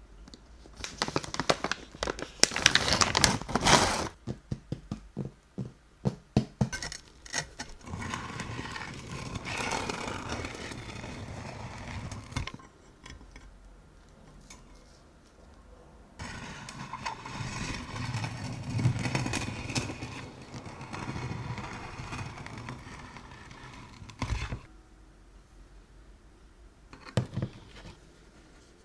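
Bread knife sawing through a crusty country loaf. The crust crackles and crunches loudly at first, breaking into a run of sharp ticks. Then come two stretches of steady rasping as the blade works through the loaf, and two knocks near the end.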